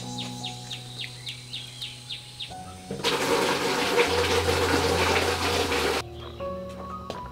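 Water pouring from a tap into a stainless steel basin for about three seconds, starting about three seconds in, over background music. Before it, a quick run of high chirps.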